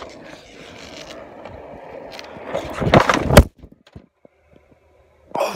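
Skateboard wheels rolling over rough asphalt, then a crash about three seconds in as the rider falls: a quick cluster of hard knocks on the pavement, the last the loudest.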